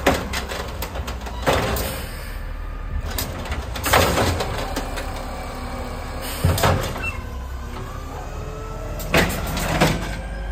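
Natural-gas-powered automated side-loader garbage truck working at the curb: the engine runs steadily under several loud clunks and bangs from the lifting arm and the emptied cart. From about two-thirds of the way in, the engine note rises steadily as the truck pulls away.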